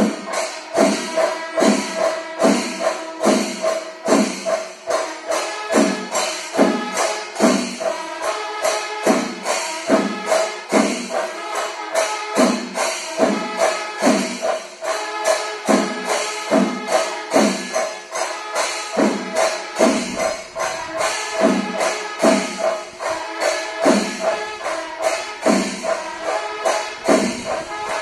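Background music with a steady percussive beat and a held tone underneath.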